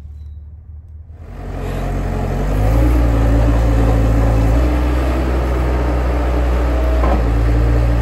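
Bobcat S185 Turbo skid-steer loader's diesel engine running, rising in level over about a second and a half soon after the start, then holding loud and steady.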